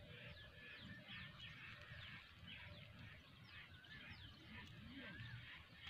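Faint chorus of small birds chirping: many short, mostly downward-sliding chirps, several a second, over a low rumble.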